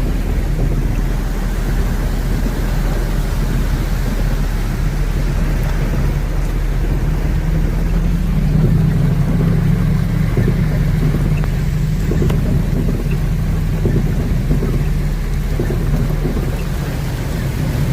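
Heavy rain falling steadily, with a continuous low rumble underneath that grows louder about halfway through.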